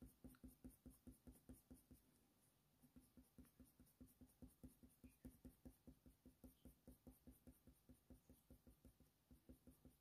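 Faint, quick strokes of a Faber-Castell Polychromos coloured pencil on hot-press watercolour paper, about five a second, with a short pause a little after two seconds, as the pencil lays on shading.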